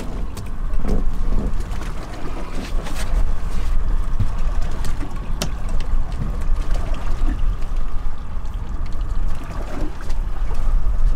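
Steady low rumble and water noise of a boat at sea, with scattered light clicks and taps as the hook of a trolling lure is worked out of a small mahi-mahi on the deck.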